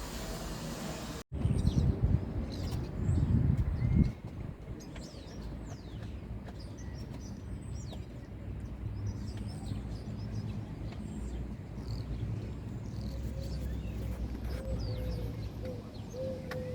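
Birds chirping, many short, high, falling chirps, over a steady low rumble. There is a louder burst of low rumbling for a few seconds near the start.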